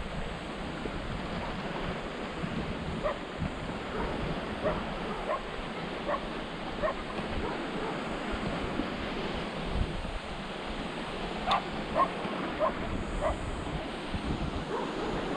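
Wind buffeting the microphone over the wash of surf, with a dog barking in the distance in short, repeated barks that come thicker near the end.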